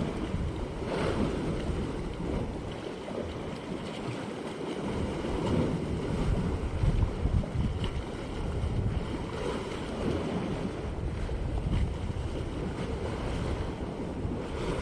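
Sea waves washing against coastal rocks, with gusts of wind buffeting the microphone.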